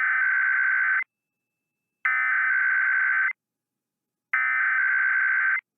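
Emergency Alert System SAME header: three identical bursts of buzzy digital data tones, each just over a second long and about a second apart. They encode the start of a required weekly test.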